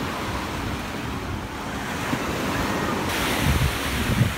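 Small waves breaking and washing up on a sandy beach, a continuous surf wash, with wind buffeting the microphone. The wash grows a little louder and brighter about three seconds in.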